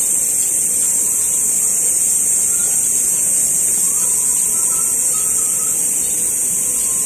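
Pressurised nitrogen hissing steadily out of an air-conditioner's service valve and charging hose: the 325 PSI leak-test charge being vented from the system before it is vacuumed.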